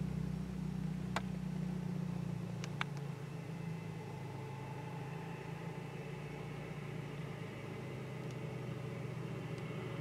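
An engine running steadily with a low, even drone, and two faint clicks in the first three seconds.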